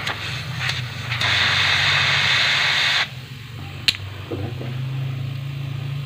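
Hiss of air blowing out of an open refrigerator vacuum pipe, pushed out by the fridge's own compressor as it pumps the air out of the system, over the compressor's steady low hum. The hiss cuts off about three seconds in. A few sharp clicks follow, one near four seconds in.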